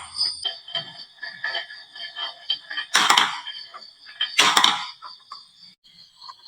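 Marbles clicking and rattling down a wooden marble run, with many small ticks and two louder clatters about three and four and a half seconds in.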